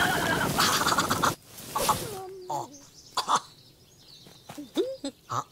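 Wordless cartoon-creature vocal sounds: a loud, noisy exclamation. After it come a falling squeal about two seconds in, short chirps, and a rising squeak near the end.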